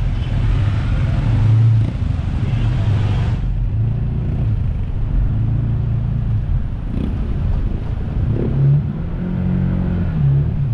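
Jet ski engine running, a steady low drone that rises and falls in pitch, with a hiss over it that drops away about three seconds in.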